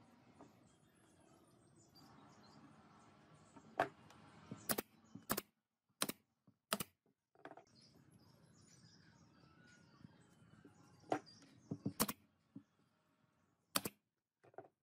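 Sharp wooden clicks and taps, about nine spread unevenly, as small wooden frames and strips are set down and fitted against each other, over a faint steady background.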